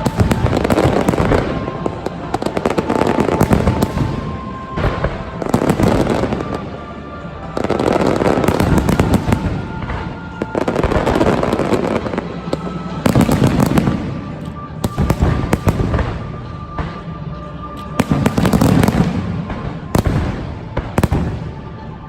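Fireworks display: loud bangs and crackling bursts in waves a few seconds apart, with music playing alongside.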